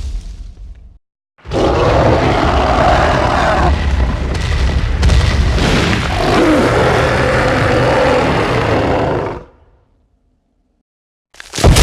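Deep roar of a giant ape, a Gigantopithecus sound effect, lasting about eight seconds. It starts about a second and a half in and cuts off near the end, just before another loud effect begins.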